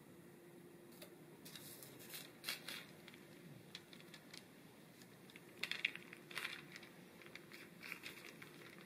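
Faint crinkling and crackling of parchment paper and soft dough as hands pull dough scraps away from cut-out biscuits, in two clusters of quick crackles.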